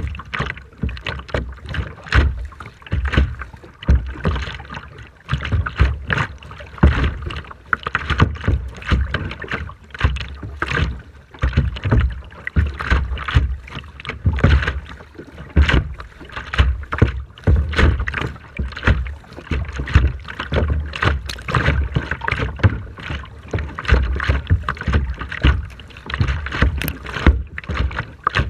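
Rough seawater splashing and slapping in quick, irregular bursts, with strong wind buffeting the microphone in low rumbling gusts.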